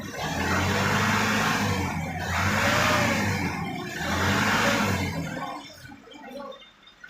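An engine revving up three times in a row, each surge lasting about one to two seconds, with a rushing hiss over it. It dies away after about five seconds.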